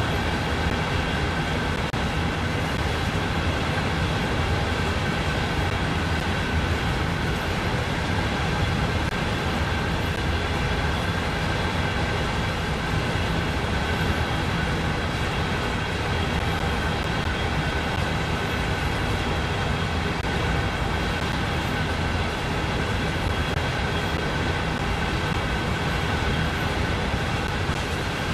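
CSX freight train giving a steady, unbroken rumble, with a few faint high steady tones above it.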